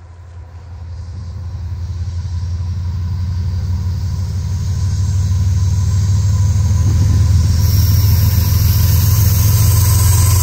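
Diesel freight locomotives approaching on the main line: a steady low engine rumble that grows louder as they near.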